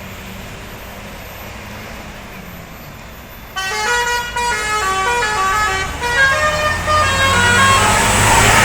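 Tour coach's Basuri "telolet" horn playing a fast melody of stepped high notes, starting suddenly about three and a half seconds in, over low engine and road rumble. The vehicle noise grows louder near the end as the coach draws close.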